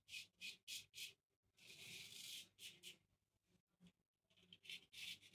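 Faint scraping of a wet-shaving razor blade cutting stubble through lather on the neck, in a series of short strokes with one longer stroke about two seconds in.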